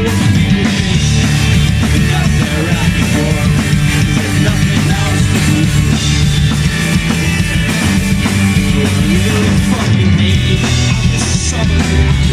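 Punk rock band playing, with a drum kit and guitars, in a stretch with no singing.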